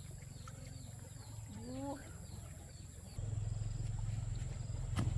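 Outdoor rural sound: short high chirps falling in pitch repeat a few times a second over a low steady rumble, which grows louder about three seconds in. A brief rising call comes near two seconds in, and a sharp click near the end.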